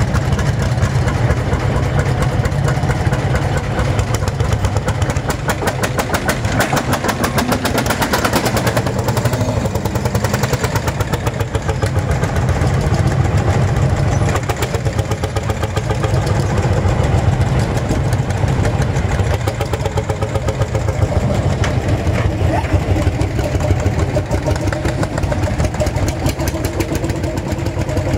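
Lanz Bulldog tractors' single-cylinder two-stroke hot-bulb engines running with a fast, even thudding beat that never lets up.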